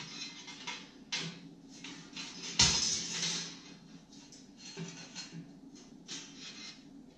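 Cut 10-gauge sheet-steel panels being fitted together by hand, with metal scraping and clinking as tabs are worked into slots; a sharp clank about two and a half seconds in is the loudest, with lighter knocks near one second in and around five seconds.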